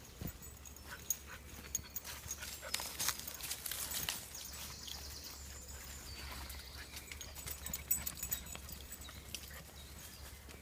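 Footsteps and dogs' paws on a dry woodland dirt path, with irregular crackles and snaps of twigs and leaf litter.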